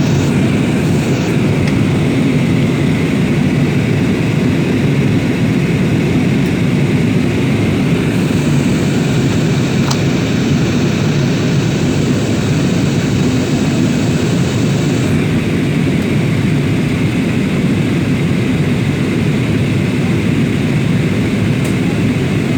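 Steady noise of an airliner in flight, heard inside the passenger cabin: the engines and the rushing airflow blend into a low, even rumble.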